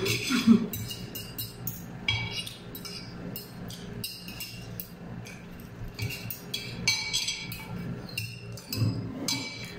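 Metal forks and spoons clinking and scraping against ceramic plates during a meal: an irregular run of small, sharp clinks, several a second.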